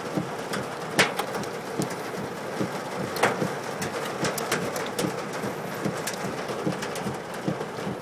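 Hail and rain hitting a car: a steady patter with irregular sharper ticks from hailstones, the loudest about a second in and again about three seconds in.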